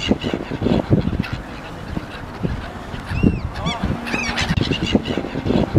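A flock of gulls calling over open water, several short arching cries in quick runs in the second half, with gusty wind rumbling on the microphone throughout.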